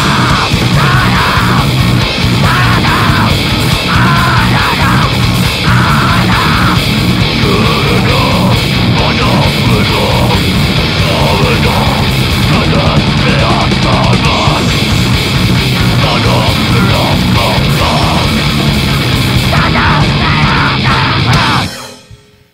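Grindcore band recording: distorted guitar, bass and drums with yelled vocals, loud and dense throughout, stopping abruptly near the end.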